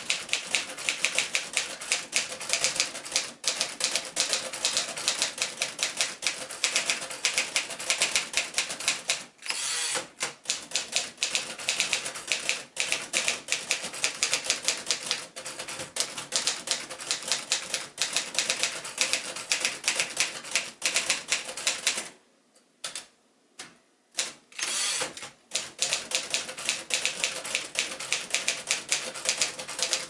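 1939 Royal Aristocrat portable typewriter being typed on at a brisk pace: a fast, uneven run of sharp key and typebar strikes. The typing breaks off briefly about a third of the way in, and again for a few seconds about three quarters through, with only a few strikes in that pause.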